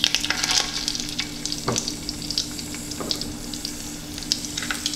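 Jack crevalle fillets frying in hot butter and olive oil in a skillet: a loud crackling sizzle as a fillet goes into the fat at the start, settling into a steady sizzle with scattered pops. A steady low hum runs underneath.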